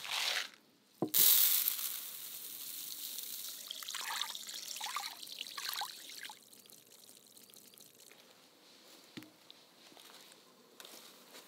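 Dry rice grains poured from a glass into a wicker basket, giving a hiss of falling grains. Then water is poured over the rice in the basket, trickling for about two seconds before it stops.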